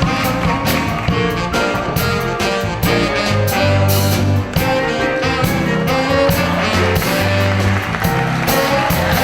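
Band music with a moving bass line and regular drum hits under pitched melody notes.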